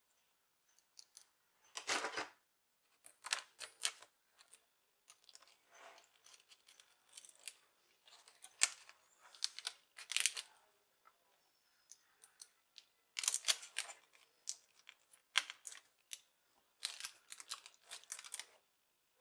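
Small screwdriver and laptop hinge parts being worked by hand while fitting new display hinges: irregular clusters of short scratchy clicks and rasps with brief pauses between.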